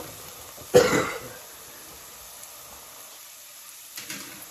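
A single sharp cough about a second in, over a faint steady sizzle of onions and green chillies frying in oil in a pot; a softer short sound follows near the end.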